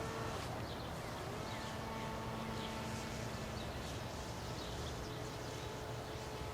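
Outdoor ambience: small birds chirping over a steady low rumble, with a faint thin whine that drifts slowly in pitch, the distant electric motor of a remote-control airplane in flight.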